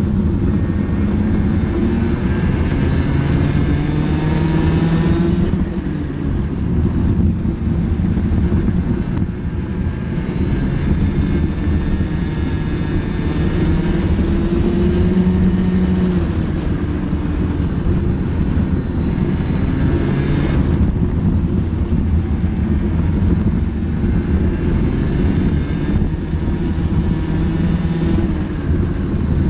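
Racing kart engine heard from onboard at race pace, its pitch climbing along the straights and dropping briefly as the driver lifts for corners, about five, nine and twenty seconds in.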